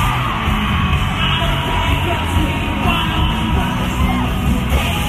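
Loud amplified live music with a heavy pulsing bass, heard through a concert sound system during a soundcheck, with yelling voices over it.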